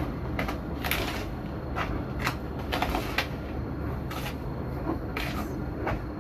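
A spatula stirring dry flour mixture in an orange plastic bowl: about ten short, irregular scraping strokes against the bowl.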